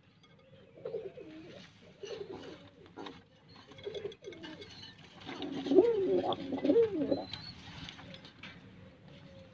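Fantail pigeons cooing: a run of low, wavering coos, loudest and most rapid a little past the middle.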